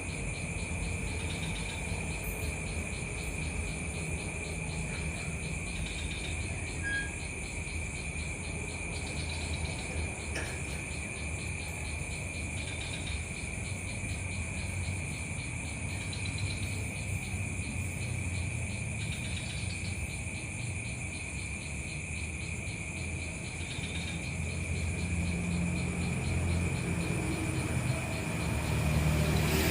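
Steady chorus of insects trilling continuously at a high pitch, with a low hum underneath that grows louder over the last few seconds.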